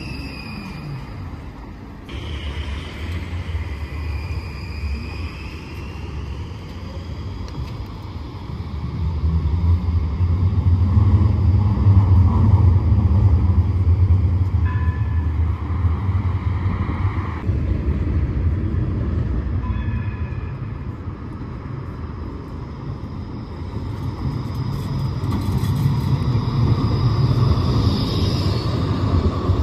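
Low-floor trams running on street track: a low rumble of steel wheels on the rails with the whine of the traction motors. A falling whine comes in the first second as a tram moves off past the platform. The rumble swells loudest in the middle and builds again near the end as another tram comes alongside.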